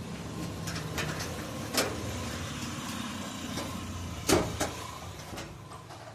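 A vehicle engine running steadily, with a few sharp clicks or knocks, the clearest about two seconds and four seconds in.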